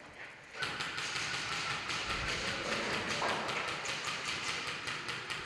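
Airsoft guns firing, a fast, dense clatter of clicks that starts about half a second in and keeps going.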